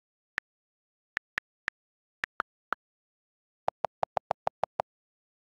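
iPad on-screen keyboard click sounds: single key taps every few tenths of a second as letters are typed, then a fast run of about nine lower-pitched clicks a little past the middle as the delete key repeats and clears the text.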